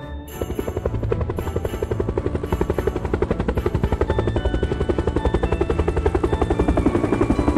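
Cartoon sound effect of a small propeller plane's engine running: a rapid, even pulsing that starts just after the beginning and grows a little louder.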